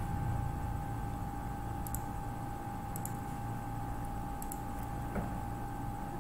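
A few sharp clicks of a computer mouse, each a quick pair, about two, three and four and a half seconds in, over a steady electrical hum.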